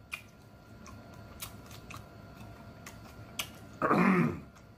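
Close-miked chewing of pork chop and peppers: sharp wet mouth clicks and lip smacks at uneven intervals, about two a second. About four seconds in comes a short, loud hummed moan of enjoyment.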